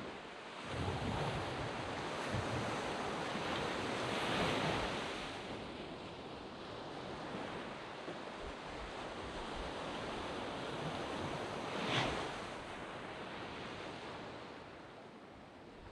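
Sea waves breaking and washing up a sand beach, swelling about a second in and again around four seconds, with a sharper crash about twelve seconds in before the surf eases off.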